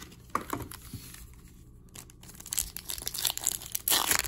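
Foil trading-card packs crinkling as they are handled and pulled from their box, then a pack wrapper crackling loudly as it is torn open near the end.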